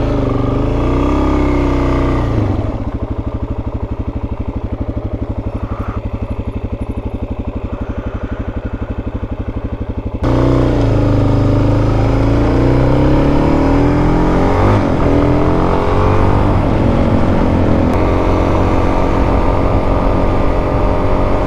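Dual-sport dirt bike's single-cylinder engine being ridden. It revs up and drops back, then runs slow and steady with a quieter, even putter for several seconds. About ten seconds in it turns suddenly louder and revs up through rising pitch sweeps, settling to a steady cruise near the end.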